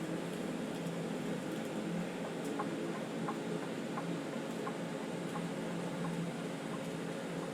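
TIG welding arc buzzing steadily, with faint light ticks about every two-thirds of a second through the middle.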